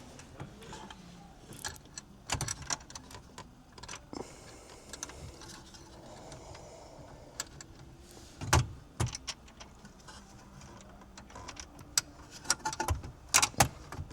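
Scattered clicks, taps and rattles of small bolts and hard plastic dash parts being handled while bolts are threaded in by hand. There are louder knocks about two and a half and eight and a half seconds in, and a quick run of clicks near the end.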